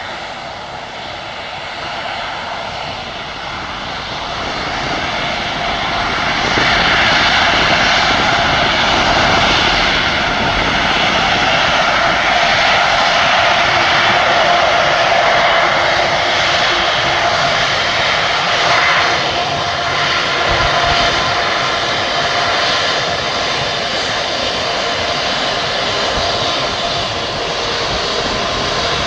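Jet engines of an Emirates Airbus A380 departing, a dense roar that grows louder over the first seven seconds or so and then holds loud and steady, with faint steady whining tones running through it.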